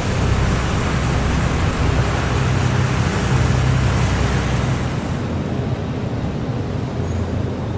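Warship engines sounding as a steady low drone under a wash of sea and wind noise; the drone fades after about five seconds, leaving mostly the sea noise.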